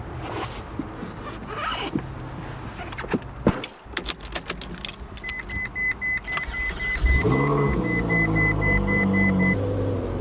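Clicks and knocks of someone getting into a car, then a warning chime beeping steadily from about five seconds in. About seven seconds in, the car's engine starts, revs up briefly and settles into a steady idle.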